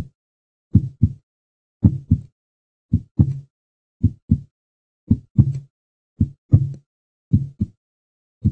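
Short, low double beats in pairs, repeating steadily about once a second, in the lub-dub rhythm of a heartbeat.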